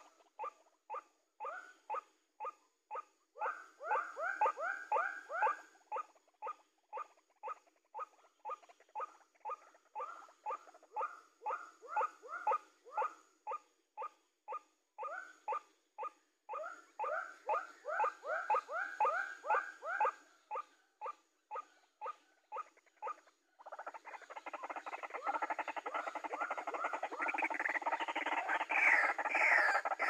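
White-breasted waterhen calls: a steady series of short croaking notes, about two a second, with stretches of louder rising notes. From about three-quarters of the way through, a denser and louder chorus of overlapping calls takes over.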